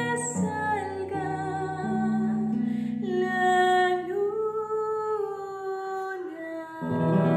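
A woman's voice singing a slow melody in long held notes over a nylon-string classical guitar accompaniment, with the guitar coming in louder again near the end.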